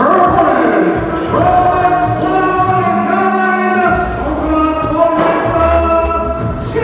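Wrestler's entrance music with sung vocals, held notes changing over a bass line.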